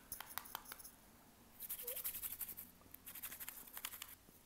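Scratchy scraping and brushing of leftover glass shards off an iPhone 13's rear frame: a few small ticks, then two spells of scraping, the second longer.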